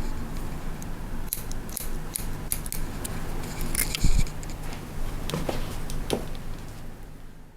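Hairdressing scissors cutting hair in short, irregular snips. A brief low thump comes about four seconds in.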